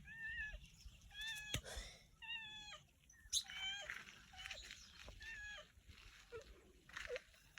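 A series of about eight short, high animal calls, each a level note that drops at the end.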